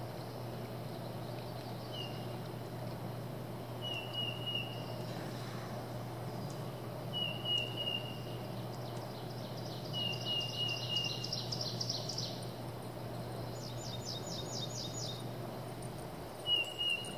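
Wild birds calling: a short, slightly falling whistled note repeated every two to three seconds, with a fast trill midway and another near the end. A faint steady low hum runs underneath.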